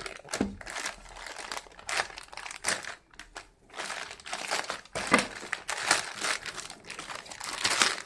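Plastic courier mailer bag crinkling as it is cut with a pocket knife and pulled open by hand, in irregular bursts with a brief pause about three seconds in.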